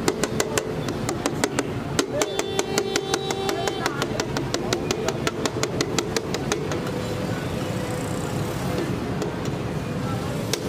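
Metal spatulas rapidly striking and scraping a large steel tawa as keema is chopped and fried, about six clangs a second, thinning out to scattered strikes after about seven seconds.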